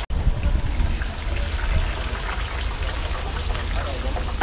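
Hot oil in a deep fryer sizzling and bubbling steadily around discs of dough frying in it.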